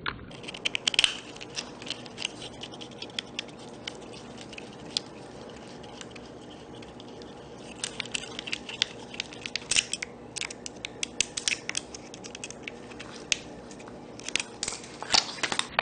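Sped-up hand work on an RC truck's motor and clutch assembly: rapid small clicks, taps and scratches of tools and plastic and metal parts being handled and fitted, in irregular clusters.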